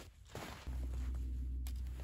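A few footsteps crunching in icy-crusted snow. About two-thirds of a second in, a steady low rumble abruptly takes over and stays the loudest sound.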